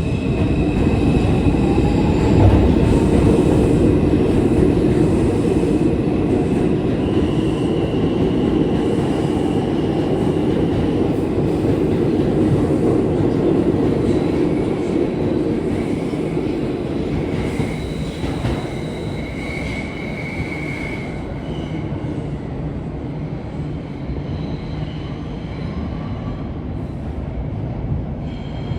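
New York City subway train running through the station: a heavy rumble of wheels on rail with high, thin wheel squeal over it and a rising motor whine at the start. It is loudest in the first half and fades gradually as the train moves off.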